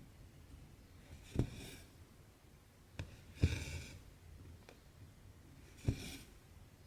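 Needle and cotton thread being drawn through Aida cross-stitch fabric, three times. Each is a sharp tick as the needle goes through, then a short swish of thread, with a lone light tick between the first two.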